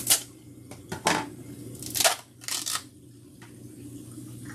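Four short crinkling, clicking noises in the first three seconds as a container of kalkwasser powder is handled and opened, over the steady low hum of the aquarium's sump equipment.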